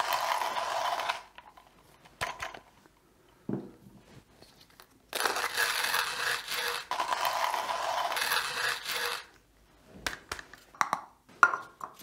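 Hand coffee grinders crunching beans. First comes about a second of a Comandante C40 being cranked, then about four seconds of the Kinu M47's steel burrs grinding at a fine Turkish-coffee setting, a dense rasping crunch. Short knocks and clicks of the grinders being handled and set down fall between and after the grinding.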